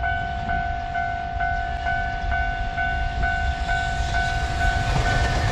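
Japanese railway level-crossing warning bell ringing, an even two-tone ding about twice a second, while a freight train approaches. The train's low rumble grows louder near the end.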